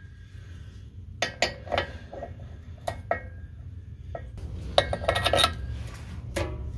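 Metal clinks and clicks of a wrench on the driveshaft-to-pinion-flange bolts as they are worked loose, a few single clinks and then a quick run of them about five seconds in.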